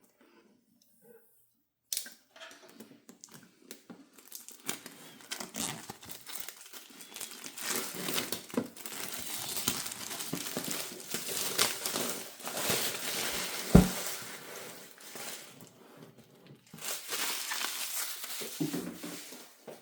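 Game packaging being unwrapped, crinkling and tearing in irregular handfuls, starting about two seconds in. There is one loud thump about fourteen seconds in.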